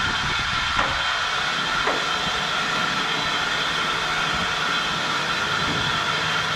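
Steady rushing hiss of running water, as from a tap or hose left on while rinsing blood out of a gutted trout.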